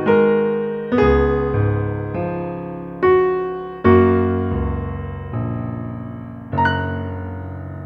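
Slow, gentle piano music: chords struck every second or so, each dying away, the last one about six and a half seconds in left ringing and fading.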